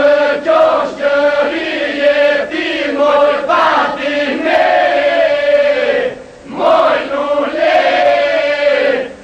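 A group of singers performing a Gjirokastër oda song, several voices singing together in long held phrases, with a short pause about six seconds in.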